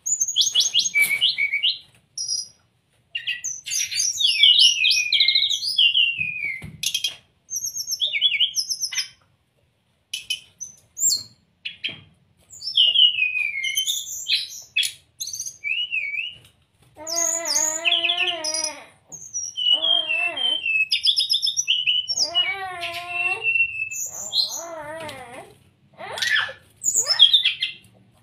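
Brown-chested jungle flycatcher singing: a rapid, varied run of high chirps, whistles and slurred notes, with lower wavering trills from a little past halfway.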